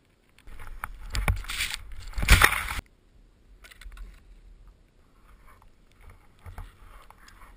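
Skis running through deep powder snow, heard through a helmet-mounted camera's microphone. There is a loud rush of snow and wind with two hard thumps, about a second and two seconds in, which cuts off suddenly near the three-second mark. After that comes a softer hiss of skis through snow with a few light knocks.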